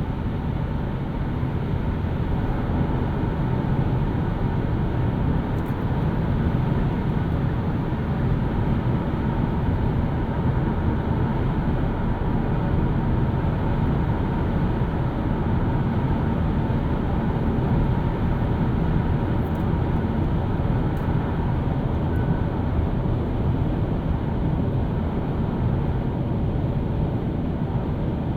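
Steady road and tyre noise from a 2018 Hyundai Kona Electric driving at a constant pace, with no engine sound, only a low, even rumble.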